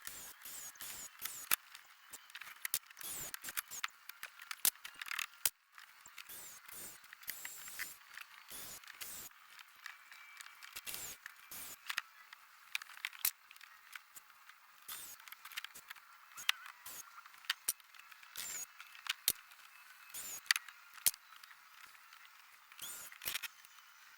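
Scattered sharp clicks and knocks at an uneven pace, from hands-on teardown work on a floating blind.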